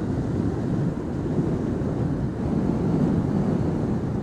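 Wind rushing over the microphone of a Yamaha R15 sport bike riding on the road, a steady low rush with the bike's running and road noise underneath.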